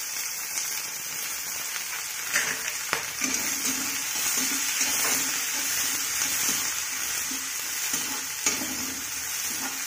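Chopped onion and green chilli sizzling steadily in hot oil in a kadhai, with a spatula stirring and scraping against the pan a few times.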